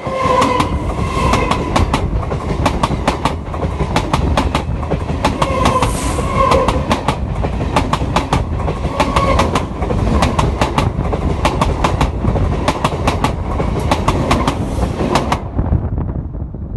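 Electric commuter train running directly over a microphone lying between the rails: a heavy rumble with rapid, irregular sharp clacks of the wheels on the rails and a wavering squeal now and then. Near the end, as the last coach clears, the sound drops away sharply and then fades.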